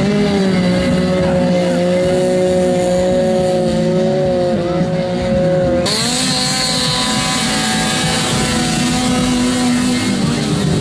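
Off-road vehicle engine running at high, steady revs. About six seconds in the sound changes abruptly and turns brighter and hissier.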